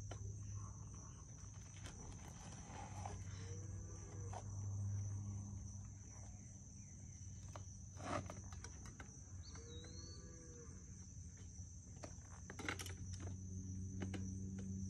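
A steady high-pitched insect chorus over a low hum, with a few sharp clicks and knocks as the front wheel of a child's bike is worked into its fork.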